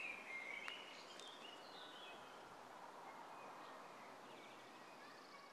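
Faint outdoor ambience with songbirds chirping now and then.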